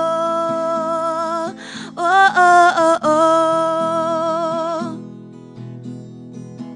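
Live song: a woman's voice singing long, wavering 'whoa-oh' notes over strummed guitar. The voice drops out about five seconds in, leaving the guitar strumming alone, more quietly.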